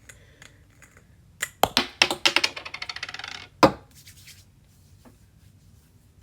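Hard plastic clicks from handling a bottle of toner: a few sharp clicks, then a quick rattling run of small ticks lasting about a second and a half, ending in one loud snap.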